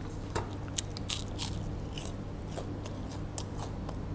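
Crunchy bites and chewing of crispy coated fried shrimp, heard close up as a string of irregular sharp crackles.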